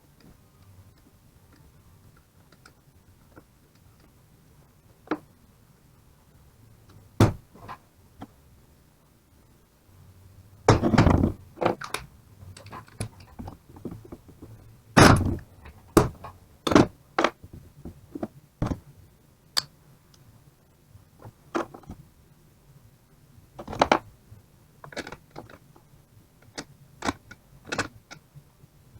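Scattered knocks, clunks and clicks of tools and metal parts being handled during work on a car alternator. A few faint ticks at first, then sharper knocks that come thick from about eleven seconds in, the loudest around eleven and fifteen seconds.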